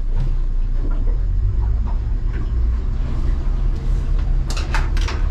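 Yamaha F300 outboard running steadily with the boat under way, a constant low drone and hull rumble heard from inside the enclosed cabin. A few short sharp sounds come near the end.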